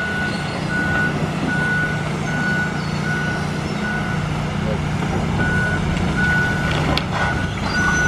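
A backup alarm on heavy demolition machinery beeps in a steady series, about three beeps every two seconds with a short pause midway, over the steady low running of the machine's engine. A couple of sharp knocks come near the end.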